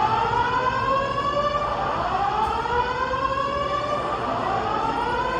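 Building alarm system sounding a repeating whoop tone: a rising sweep in pitch, starting over about every two seconds. The alarm is active while its cause is still being investigated.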